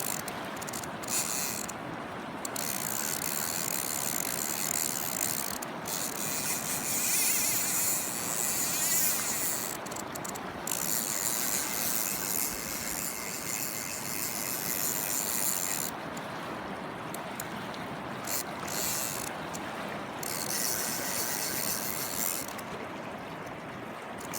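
Fishing reel ratcheting in long runs broken by short pauses, as line is reeled in or pulled against the drag while a hooked Atlantic salmon is played.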